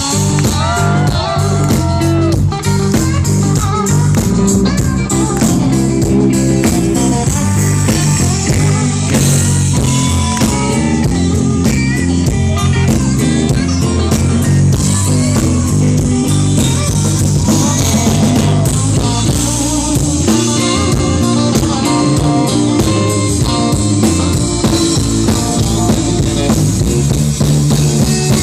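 Live blues band playing an instrumental passage: a lead guitar line with bending notes over a drum kit and the rhythm section.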